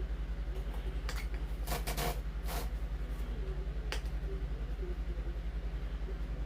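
A steady low mechanical hum with a fast even pulse, with a few light clicks and scrapes of small plastic RC-plane wheel parts being handled and pulled apart, about one, two and four seconds in.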